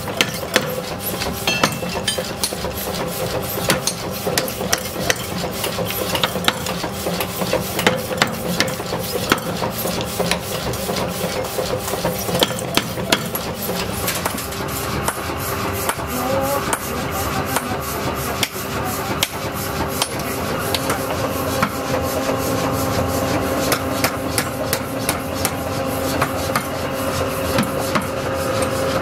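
Mechanical power hammer striking red-hot steel on its anvil in a fast, even run of sharp blows, over the steady hum of a running machine.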